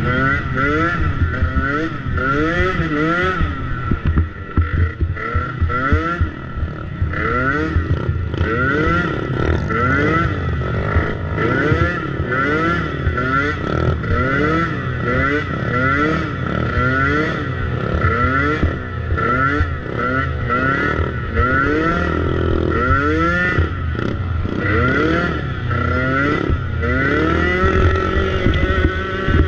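50cc two-stroke dirt bike engine revving up and falling back over and over, about once or twice a second, as the throttle is worked on a rough course, with frequent knocks and clatter from the bike over the ground.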